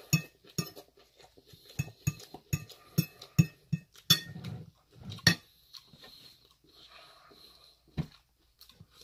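Close-up chewing of a mouthful of crisp fresh lettuce: a run of sharp crunches, about two a second, dying down to quieter chewing about halfway through, with a single click near the end.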